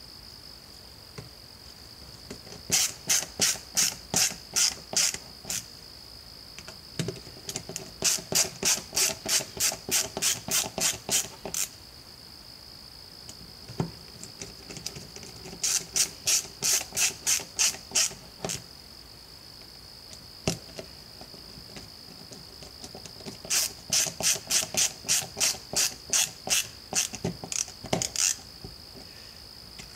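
Ratcheting screwdriver with a T15 Torx bit clicking in quick back-and-forth strokes, about two a second, as screws are driven into an impact driver's rear motor cap. There are four runs of strokes, each of about six to twelve, with short pauses between them.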